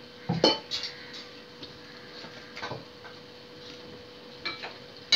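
Stainless steel kitchen utensils clinking and clanking a few times, the loudest clank with a short metallic ring about half a second in, then lighter clinks near the middle and toward the end.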